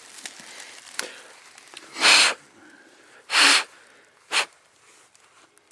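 Three short, loud hissing puffs of breath close to the microphone, about a second apart, the last one shortest.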